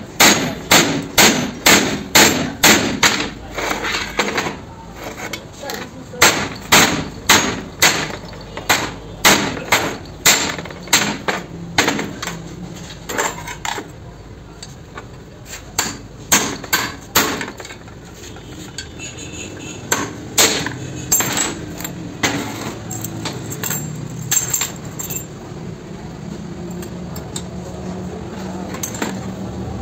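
Steel hammer striking a punch against a Hyundai Santro wheel hub assembly clamped in a vise, sharp metal-on-metal blows about two a second for the first dozen seconds, then slower, scattered strikes, stopping about two-thirds of the way in; this is the hub being knocked apart to replace the wheel bearing.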